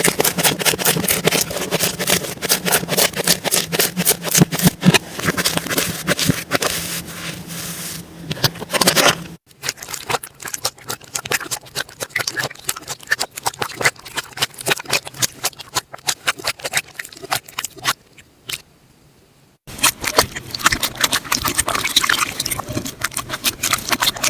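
Slime being squished and pressed by hand, giving a quick, uneven run of sticky clicks and crackling pops. It comes in three cut-together clips, with joins about nine and twenty seconds in and a brief quieter moment just before the second join.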